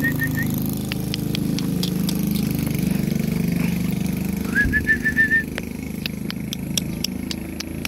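An engine running steadily, with a low drone that weakens about halfway through. A quick run of short high chirps comes about five seconds in, with scattered light clicks.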